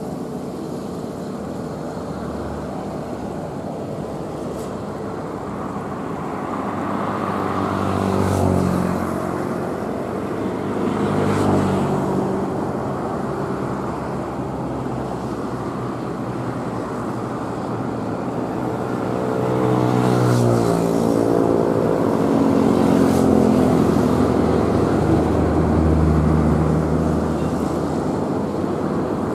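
Road traffic passing close by: a run of cars and motorcycles go past one after another, each engine note swelling and then dropping in pitch as it passes, over a steady low engine drone.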